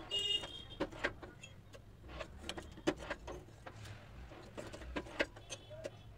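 Ceramic tile pieces and hand tools clinking and tapping irregularly as they are handled, a few ringing clinks near the start, over a low steady hum.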